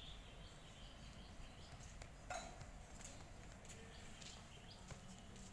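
Near silence: faint outdoor background with a few soft clicks, the clearest about two seconds in.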